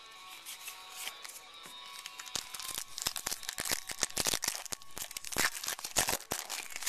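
Foil wrapper of a baseball card pack crinkling and tearing as it is opened: a rapid run of sharp crackles starting about two seconds in.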